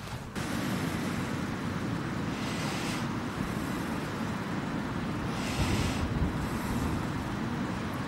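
Strong gale-force wind buffeting the microphone with a steady low rumble. Water swishes in a shallow puddle as a hand rubs a muddy coin clean, in three short splashy bursts.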